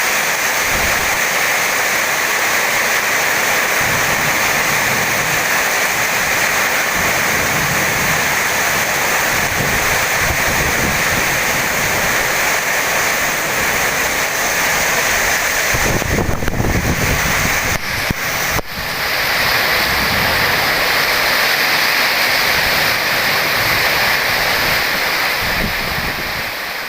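Heavy tropical rain pouring hard and steadily, with wind. About two-thirds of the way through there is a short low rumble and a couple of sharp knocks before the steady downpour resumes.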